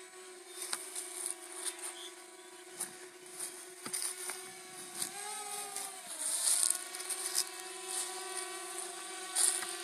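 DJI Spark quadcopter's propellers buzzing in flight: a steady hum whose pitch rises and then drops back about five seconds in. Scattered short clicks and hissy bursts sound over it.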